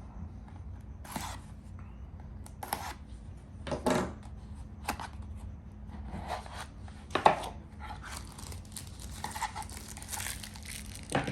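Packaging being torn and handled as a knife is unboxed: a string of separate ripping and rustling noises, the loudest about seven seconds in, giving way to steadier crinkling near the end.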